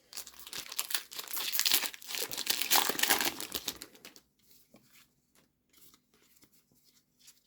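A Pokémon card booster pack's foil wrapper crinkling and being torn open for about four seconds, then a few faint soft ticks as it is handled.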